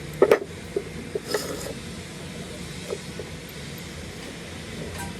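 A few sharp knocks, the two loudest close together right at the start and fainter ones over the next few seconds, over a steady low rumble.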